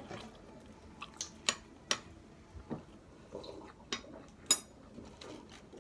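Close-up mukbang eating sounds: a handful of sharp clicks and smacks of mouth, spoon and food, spaced irregularly, the loudest about four and a half seconds in.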